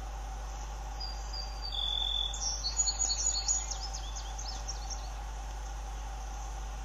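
A small songbird sings a short high-pitched phrase. It starts with a few whistled notes about a second in, then a quick twittering run that ends about five seconds in. Under it is a steady electrical hum and hiss.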